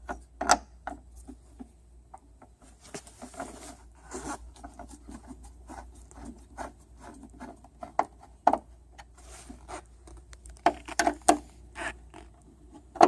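A screw being turned by hand with a screwdriver into the plastic of a picnic table's support brace: irregular scraping, creaking and clicking strokes as the screw bites into the plastic.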